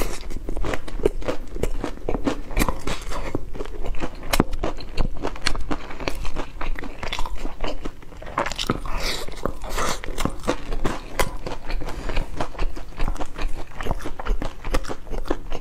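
Close-miked crunchy bites and chewing of crispy fried chicken: a dense, irregular run of crackling crunches, several a second, with some louder bites among them.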